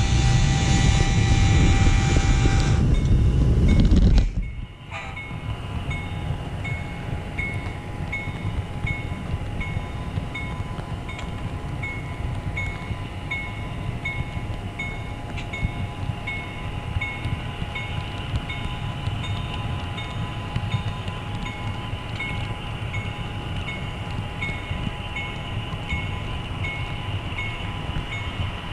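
Model train running on the layout, heard from on board: a loud rumble for the first few seconds, with a pitched horn blast during its first three seconds. The rumble drops off suddenly at about four seconds. It gives way to a quieter, steady rolling with a light click roughly three times every two seconds.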